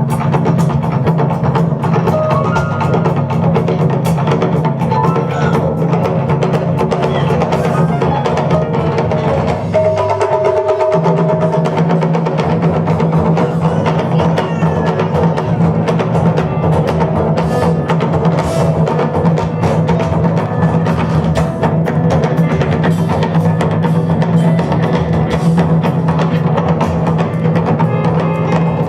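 Live taiko drum ensemble playing with a funk band of keyboard, electric bass and drum kit: dense, driving drum strikes over a steady bass line. The low end drops out briefly about ten seconds in.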